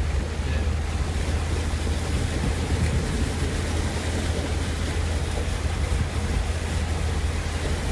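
Vehicle driving through a shallow rocky creek, heard from inside the cab: a steady low engine and drivetrain drone under a continuous wash of splashing water and tyres on wet gravel.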